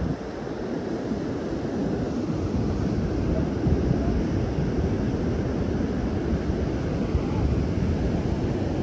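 Wind buffeting the microphone over the steady wash of ocean surf, a gusty low rumble with no distinct events.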